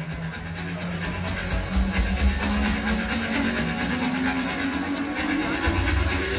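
Live rock band opening a song with electric guitars, bass and drum kit: a cymbal ticks steadily about four times a second over a low bass rumble, while a tone rises slowly in pitch and the whole band grows steadily louder.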